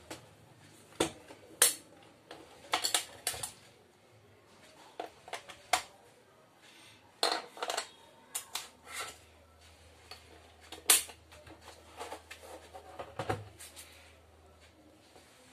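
Plastic digital bathroom scale being handled on a hard floor: scattered clicks and knocks as it is flipped over, a battery is fitted into its compartment, and it is turned back face up. Two knocks, about a second and a half in and about eleven seconds in, are the loudest.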